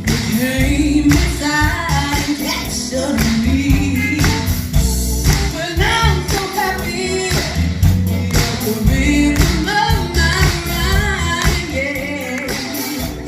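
Female voices singing over amplified band music with a strong bass beat.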